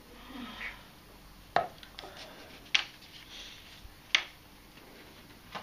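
Four sharp, isolated taps or clicks, about one every second and a half, over quiet room tone.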